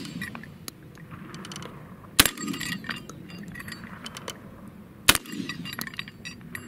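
Two shots from a Catamount Fury II 12-gauge semi-automatic shotgun, about three seconds apart, each with a rumbling echo. Light metallic clinks fall in between, from the struck steel spinner targets.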